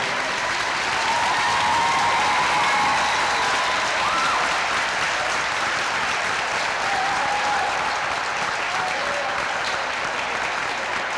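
Audience applauding: steady clapping from a crowd of spectators at the end of a skating routine.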